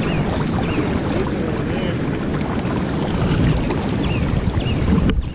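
Steady rushing noise of river water and wind on the microphone while wading in a river, dropping away suddenly just before the end.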